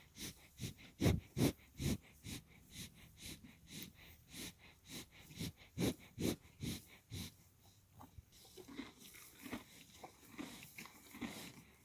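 A horse close to the microphone making short breathy and crunching sounds, irregularly about two or three a second, growing sparser after about eight seconds.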